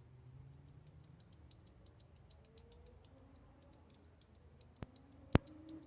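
Faint, quick light ticking throughout, with two sharp clicks about half a second apart near the end, the second one the loudest.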